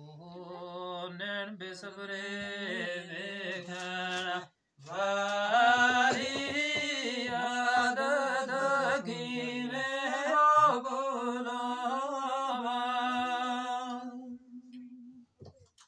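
A man's voice chanting a Gojri verse unaccompanied, in long held notes. There is a short break about four and a half seconds in, then a longer phrase that fades out near the end.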